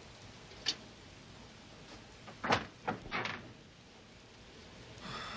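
A door being opened: a small click about a second in, then a few knocks and rattles of the door about halfway through.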